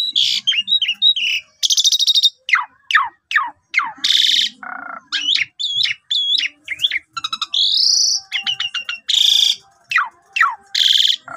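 Asian pied starling (jalak suren) singing a long, varied song: falling slurred whistles, harsh rasping blasts and quick clicking rattles in close succession.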